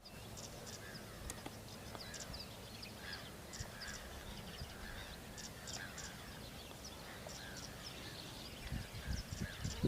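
A flock of waterbirds honking and gabbling, with many short, high chirps scattered over it and a low rumble underneath.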